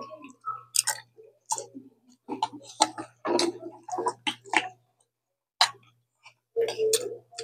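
Spoon and fork clicking and scraping against a ceramic plate of rice in a string of sharp taps, with close-up eating sounds between the clicks.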